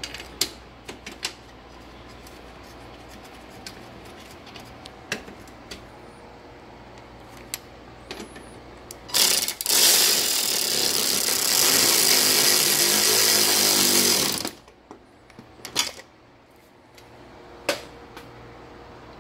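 Power driver with a socket on a long extension running a bolt down into a headlight mounting bracket: a short burst about nine seconds in, then about five seconds of continuous running. Scattered light clicks and knocks of parts being handled before and after.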